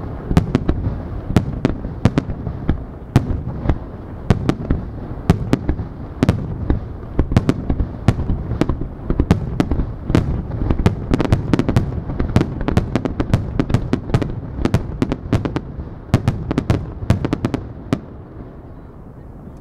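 Aerial firework shells launched and bursting in rapid succession, several sharp bangs a second over a deep continuous rumble, easing off near the end.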